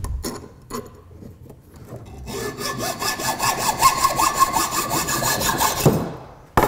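Hand hacksaw cutting through a metal threaded rod clamped in a vise, in quick, even back-and-forth strokes, shortening the rod to length. The sawing starts about two seconds in after a few light clicks and stops shortly before the end.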